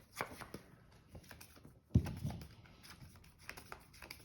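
Trading cards and hands on a tabletop: scattered soft taps and clicks of cards being handled, with one louder thump about two seconds in.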